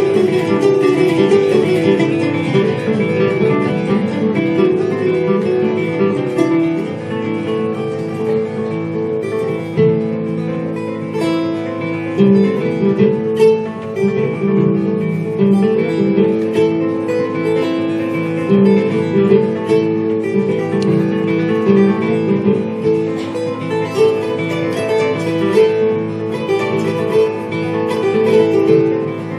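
Acoustic guitar and kora playing an instrumental passage together, a dense run of plucked notes.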